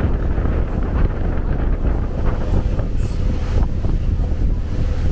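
Wind buffeting the microphone aboard a moving harbour shuttle boat, over a steady low rumble from the boat and the water. A faint steady hum joins about halfway through.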